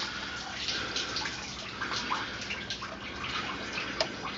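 Engine coolant running and splashing as the overfilled cooling system spills coolant out of the open bleed hole, with a small click about four seconds in.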